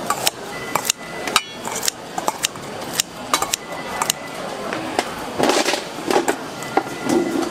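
Metal kitchen scissors snipping and a metal spoon clinking and scraping against a stainless steel bowl as a bowl of bibimbap with leafy greens is cut and mixed: a run of irregular sharp clicks and clinks.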